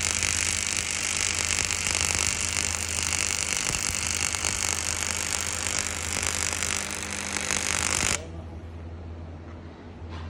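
Stick-welding arc crackling and hissing steadily during a root pass. The arc cuts off suddenly about eight seconds in, leaving a steady low hum.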